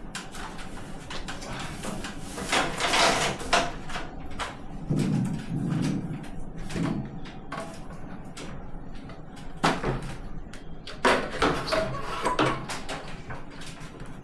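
Irregular knocks, clunks and clatter of things being handled and moved, with the loudest clusters of knocks about three seconds in and again around ten to twelve seconds in.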